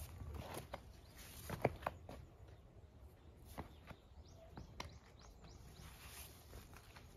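Faint footsteps on a paved lane, a few scattered steps, the loudest about a second and a half in. A bird chirps a quick run of short falling notes about four seconds in.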